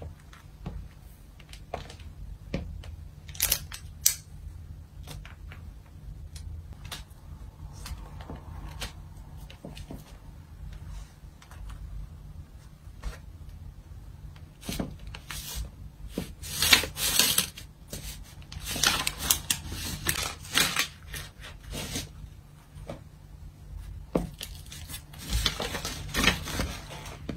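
High-heel platform boots clicking on a wooden floor and stamping on egg tarts in foil cups, crushing and crinkling the foil and paper underneath. Scattered heel clicks come first, then long bursts of crinkling and crunching in the second half.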